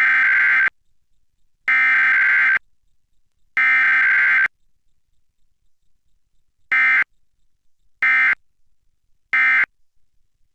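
Emergency Alert System SAME digital data tones: three buzzing bursts of about a second each, then three short bursts, the alert's header code and its end-of-message code.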